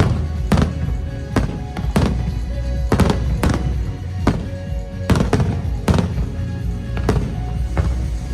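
Fireworks shells bursting in a rapid string, a sharp bang every half second or so, over loud music played for a musical fireworks display.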